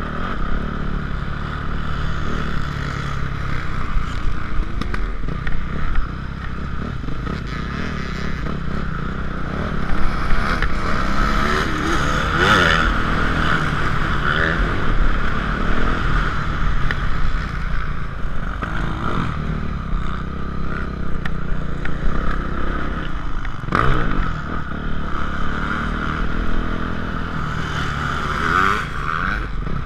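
Yamaha YZ450F four-stroke single-cylinder motocross engine being ridden hard, its revs rising and falling again and again as the rider accelerates and backs off, with sharp surges about twelve and twenty-four seconds in. Wind rushes on the onboard camera's microphone underneath.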